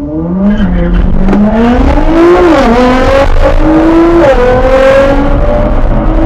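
Modified Nissan GT-R engine launching hard and accelerating, its pitch climbing steadily and dropping suddenly at two upshifts, about two and a half and four and a half seconds in, over a low rumble of road and wind noise.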